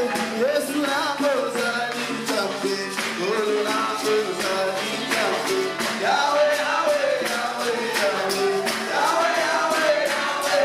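A congregation singing a worship song with instrumental backing and a steady percussive beat, with hands clapping along.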